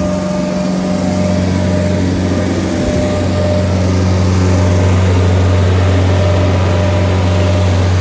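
Caterpillar 247 skid steer's diesel engine running steadily, getting a little louder about halfway through.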